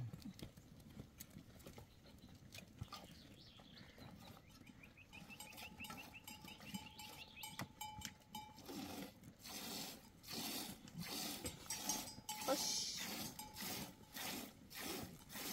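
A goat being milked by hand into a metal pot: jets of milk strike the pot in a steady rhythm of short, sharp squirts, which become clear and regular about halfway through.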